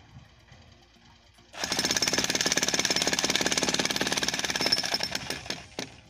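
Electric demolition breaker (jackhammer) chiselling into a reinforced concrete slab. It starts about a second and a half in with a loud, rapid, steady rattle of blows, stops after about four seconds, and gives one short burst just before the end.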